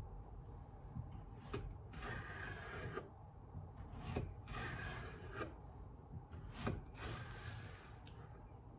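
A kitchen knife drawn through zucchini, cutting it lengthwise into thin slices on a wooden board. There are three slow slicing strokes, each about a second long and each starting with a light tap.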